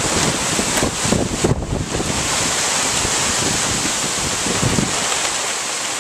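Hurricane wind and rain: a loud, steady rushing through the trees, with gusts buffeting the microphone in low rumbles about a second in and again near the end.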